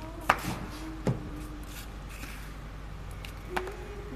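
Car door being unlatched and opened: a few sharp clicks and knocks, the loudest about a second in, over a steady low hum.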